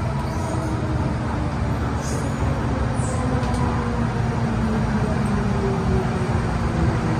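Hong Kong MTR M-Train (Metro-Cammell electric multiple unit) running through a tunnel, heard from inside the car: steady rumble of wheels and tunnel with a low hum. A whine slides slowly down in pitch over the second half, with a couple of faint high clicks about two and three seconds in.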